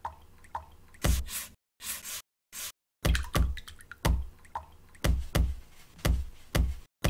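Soundtrack made from recorded watercolor painting sounds, drips and taps arranged into a beat. The hits mostly come in pairs about once a second, with abrupt cut-outs to silence about two seconds in.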